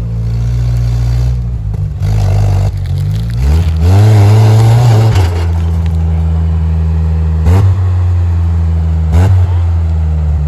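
Off-road pickup truck engine idling under load on a climb. Its revs climb sharply about three and a half seconds in, hold for a second and fall back to idle. Two short throttle blips follow near the end.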